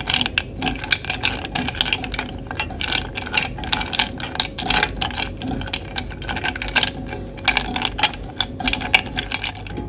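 Silicone spatula stirring broken pieces of dark chocolate in a stainless steel saucepan: the still-solid pieces clack and scrape against the pan in quick, irregular clicks, over a steady low hum. The chocolate is at the start of being melted over a direct flame.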